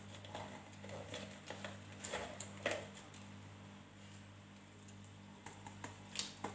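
Light taps and clicks of a kitchen knife on a wooden cutting board as green peppers are cut and cored by hand, over a low steady hum.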